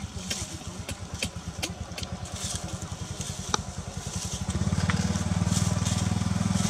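A small engine running steadily with a low pulsing beat, growing louder about two-thirds of the way through. Light crackles of dry leaves are scattered over it.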